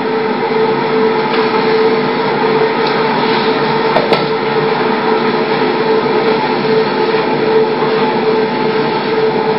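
Steady loud hum and hiss with a constant mid-pitched tone, and a single short click about four seconds in.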